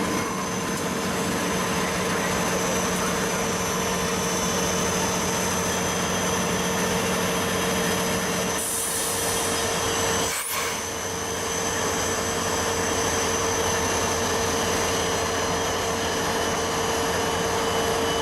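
A train rolling past on steel rails: a steady noise of wheels on track with a few faint steady tones, a short hiss about nine seconds in and a brief dip a second later.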